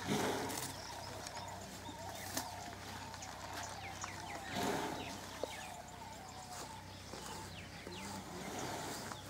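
Small birds chirping in the background, with two brief rushes of noise: one at the start and one about halfway through.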